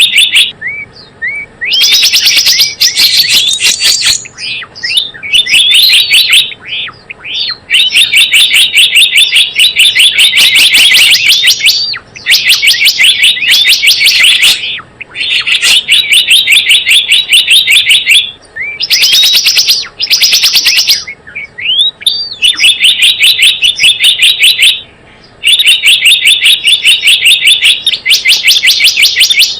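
Gelatik bloong lure call: fast trains of high, sharp chirps in bursts of one to several seconds, broken by short gaps with scattered single rising call notes.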